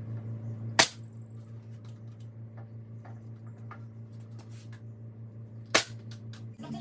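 Pneumatic finish nailer firing twice into one-by-two wood strips, one sharp shot about a second in and another near the end, with light clicks and knocks of the boards being handled between. A steady low hum runs underneath and stops shortly before the end.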